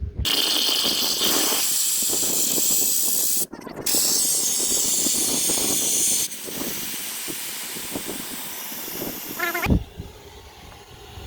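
Compressed air hissing loudly through the valve of an inflatable boat-lifting bag. It cuts out briefly about three and a half seconds in, comes back, then runs on more quietly for a few seconds before stopping.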